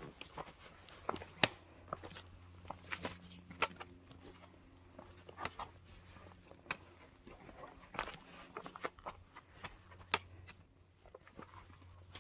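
Hiking boots stepping and scuffing across rock: irregular sharp knocks and clicks, one every half second to a second or so.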